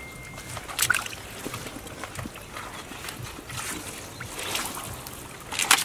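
Intermittent splashing and squelching of hands and bare feet in shallow muddy water, a few short wet splashes, the loudest one near the end.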